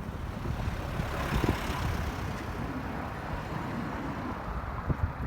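A train rolling past close by: the steady rumble and hiss of steel wheels on the rails as a DE10 diesel locomotive hauls new Sotetsu 12000-series cars. The hiss swells about a second in, and a few short low thumps come through.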